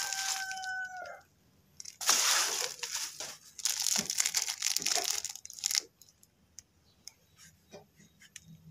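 Plastic packaging crinkling and rustling in the hands: a clear plastic bag and bubble wrap being handled. It comes in two loud stretches, in the first second and from about two to six seconds in, then thins to scattered small crackles.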